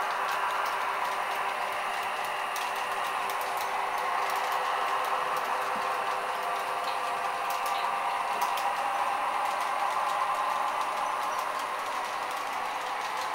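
Model freight train running along the track: a steady whirring with faint, irregular clicking.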